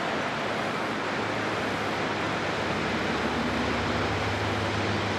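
Steady rushing of the spring-fed trout stream, an even wash of noise, with a faint low hum underneath from about a second in.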